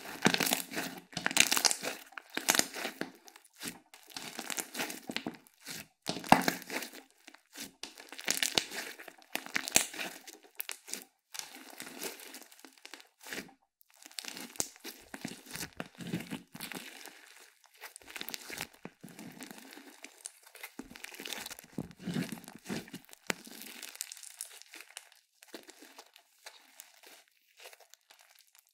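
Slime being squished and stretched by hand, a run of irregular noisy bursts every second or so, louder in the first half and fainter toward the end.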